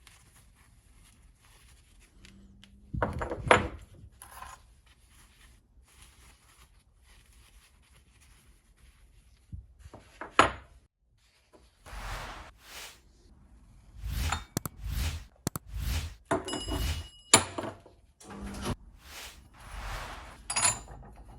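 A series of knocks, thunks and short scrapes from hard objects being handled, with one brief metallic ring about seventeen seconds in.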